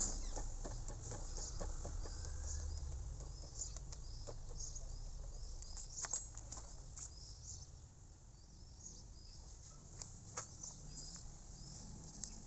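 Faint bird chirping, with scattered light clicks and taps over a low steady hum.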